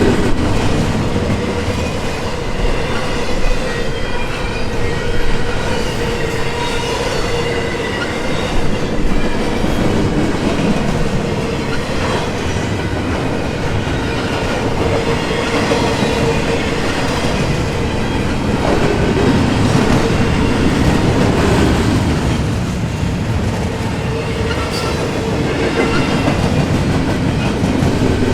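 Intermodal container train cars rolling past steadily, their wheels clacking over rail joints, with a steady whine running under the rumble.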